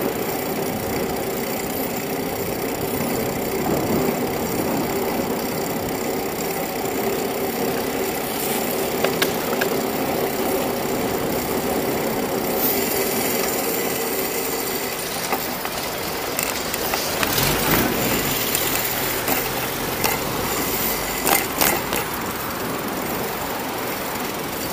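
Steady rolling and wind noise from a bicycle riding along an asphalt street, with sharp knocks and rattles from bumps that come more often in the second half.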